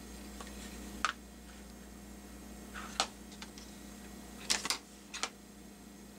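Light plastic clicks and taps from handling an LED halo ring, its wiring and a small infrared remote: a click about a second in, another around three seconds, then a quick cluster of three or four a little later.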